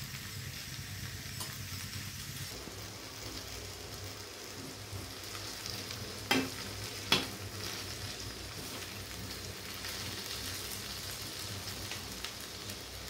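Chopped okra sizzling as it fries in oil in a steel kadai, stirred with a spatula, with two sharp knocks of the spatula against the pan a little after halfway.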